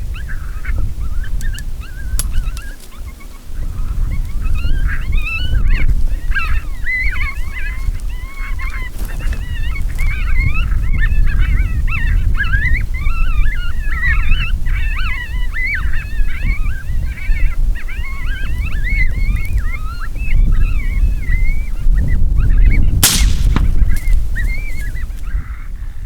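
A large flock of birds calling over one another, many wavering calls at once, with wind rumbling on the microphone. One loud, sharp bang comes near the end.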